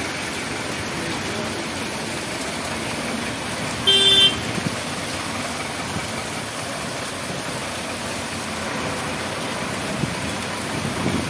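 Steady hiss of heavy rain and wet-road traffic as auto-rickshaws and a truck drive over the crossing, with one short vehicle horn toot about four seconds in.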